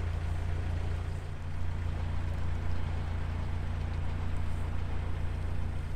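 Narrowboat's engine running steadily under way, a low even drone.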